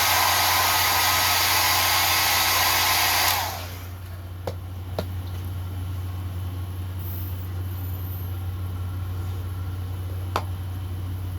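Handheld hair blow dryer blowing with a steady whine, drying tacky lace-wig adhesive, then switched off about three and a half seconds in. A low steady hum and a few faint clicks follow.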